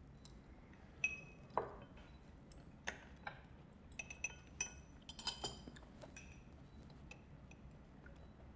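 Cutlery clinking against plates as diners eat: a scatter of light, ringing taps, busiest in the middle few seconds, over a faint low hum.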